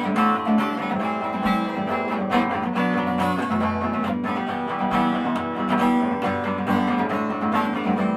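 Six-string acoustic guitar strummed in a steady rhythm, chords ringing on, as an instrumental passage between sung lines.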